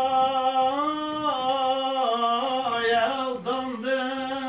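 A man singing a Turkish ilahi (religious hymn) unaccompanied, drawing a syllable out into long held notes with small ornamental turns in pitch.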